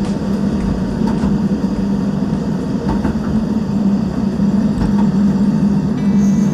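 Steady running noise of a train heard from inside the carriage, a low hum under rumble with a few faint clicks. A thin high tone comes in near the end.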